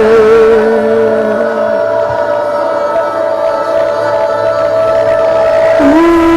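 Slow worship music of long held notes; a wavering note fades out early and a new note comes in shortly before the end.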